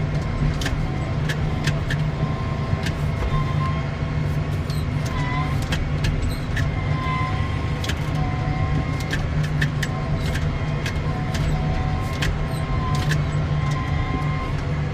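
Farm tractor's engine running steadily while driven, with frequent light clicks and rattles and a faint steady whine.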